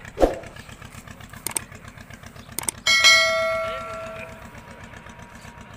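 Subscribe-button overlay sound effects: a short swoosh, two clicks, then a bell ding that rings out over about a second and a half. Under them the boat's engine keeps a steady low throb.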